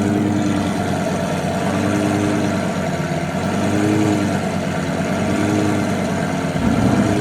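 Mercedes-Benz SLS AMG's 6.2-litre V8 idling, its exhaust note rising and dipping gently in pitch every second or so.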